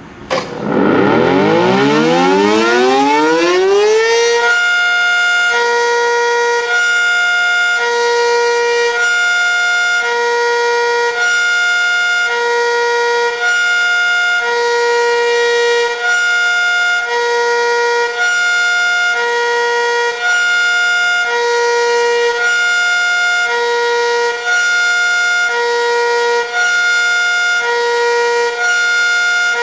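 ACA Superbanshee outdoor warning siren winding up from rest in a rising wail over about four seconds, then sounding a hi-lo signal: a loud steady chord that switches between two tones about once a second as its dampers are opened and closed by hand.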